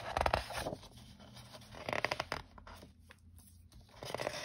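Sheets of patterned scrapbook paper sliding against each other and rustling as they are handled and leafed through, in bursts just after the start and about two seconds in.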